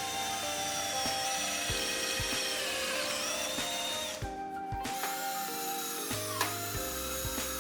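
Electric drill running as it bores mounting holes in an aluminium door frame; its whine dips in pitch under load, stops briefly a little past halfway, then starts again.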